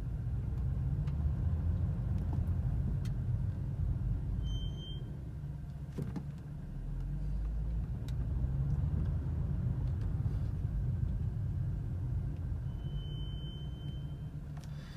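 BMW M235i brakes squealing in two short, steady, high-pitched squeaks, a brief one about a third of the way in and a longer one near the end, as the car brakes moving forward, over the low rumble of the car rolling. The squeal persists even after the brakes were bedded.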